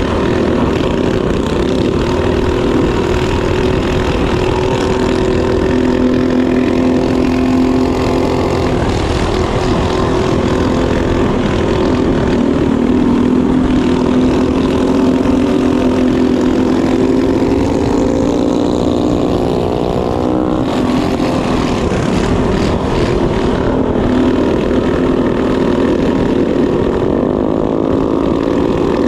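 Mini bike's small single-cylinder four-stroke engine running hard at speed, its pitch rising and falling as the throttle is opened on the straights and eased for the turns, over a constant rush of wind.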